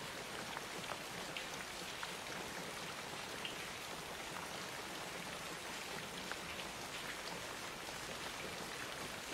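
Steady rain falling, with scattered sharper drops standing out now and then.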